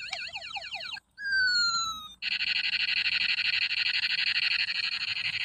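Electronic sound effects of a battery-powered gold toy space pistol being fired. It starts with a wavering siren-like warble, gives a single falling zap a second in, then a steady pulsing buzz from about two seconds in.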